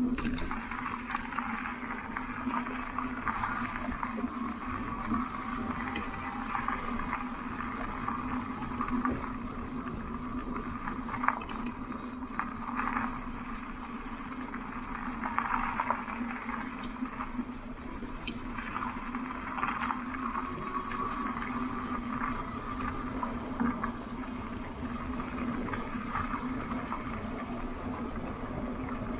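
Electric bike riding on a gravel and dirt trail: tyres rolling and crunching with scattered small ticks and pops over a rushing noise, and a steady low hum underneath.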